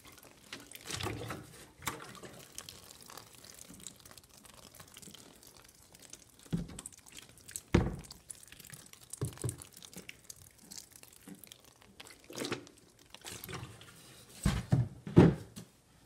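Water being poured in irregular splashes onto shredded cardboard bedding in a plastic worm bin, with wet rustling of the bedding. A few louder bumps come near the end.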